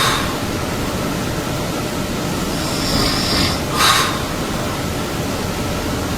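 A person snoring loudly: a continuous low rumble of breathing. About every four seconds comes a high hiss followed by a short, sharp puff of air, once right at the start and again about four seconds in.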